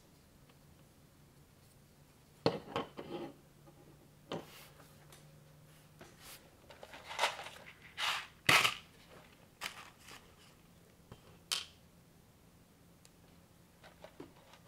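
Plastic construction-toy bricks and Technic-style parts being handled and pressed together, making sharp clicks and short rattles. There are a few clicks, then a busier cluster of clicking and rattling midway with the loudest snap about eight and a half seconds in, then scattered light ticks.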